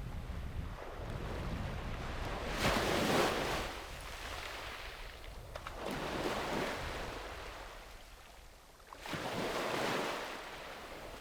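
Sea waves breaking and washing up a sandy beach: three surges of surf hiss, about three to four seconds apart, over a steady low rumble.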